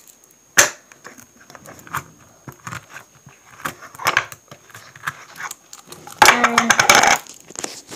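Handling noise on a phone's microphone: a sharp knock about half a second in, scattered small clicks and rubbing, then a loud, breathy rush of noise lasting about a second near the end.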